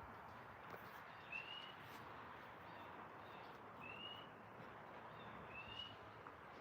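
A bird calling faintly: three short rising chirps, a couple of seconds apart, over quiet outdoor background.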